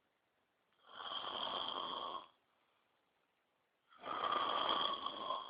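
A man snoring loudly: two long snores about three seconds apart, each lasting about a second and a half, the second a little louder.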